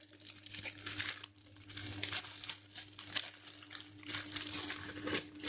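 Steady crinkling and crackling as a foam squishy toy is handled and squeezed, a dense run of small clicks throughout.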